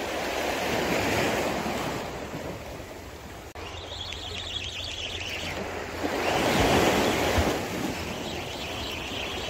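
Small sea waves breaking and washing over low flat rocks at the water's edge, with one louder surge about six seconds in.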